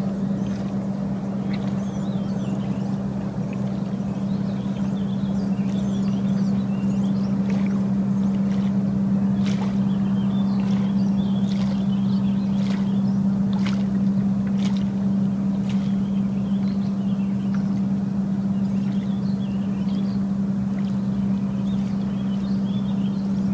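Boat motor running steadily with a constant-pitched hum, with a few faint sharp ticks over it.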